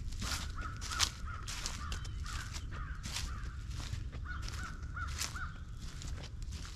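Footsteps crunching through dry fallen leaves, while a bird calls in short runs of three or four quick notes, three times over.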